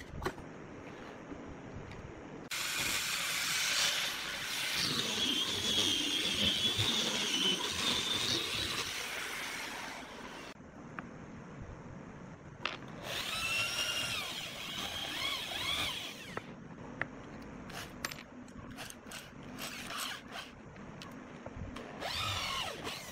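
Handheld electric drill boring into a wooden bed frame in three runs: a long one of about seven seconds, a shorter one of about three, and a brief one near the end. The motor whine wavers in pitch as the bit works through the wood. A few sharp clicks and taps come between the second and third runs.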